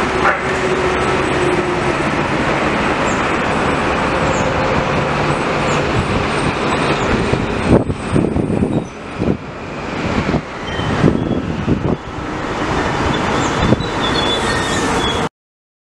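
Metro-North M8 electric multiple-unit train pulling into the station: a steady rumble of wheels on rail, turning into irregular clunks and clatter in the second half as it comes alongside the platform, with a few faint high squeals. The sound cuts off suddenly near the end.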